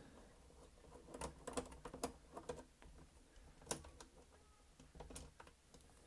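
Faint, irregular clicks and ticks of a hand screwdriver turning the screws out of a Roomba robot vacuum's plastic underside, with small knocks from handling the housing.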